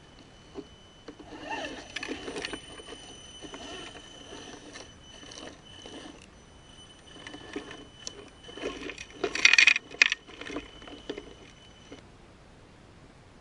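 Radio-controlled scale 6x6 truck driving over rough ground: a steady high motor whine under irregular rattles, clicks and knocks from the model, with a louder rattling burst about nine seconds in. It all stops about twelve seconds in.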